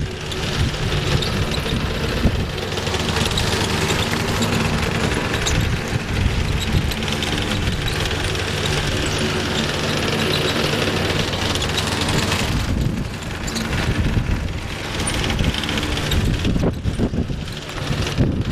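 Small gasoline lawnmower engine running steadily, dipping slightly in loudness about two-thirds of the way through.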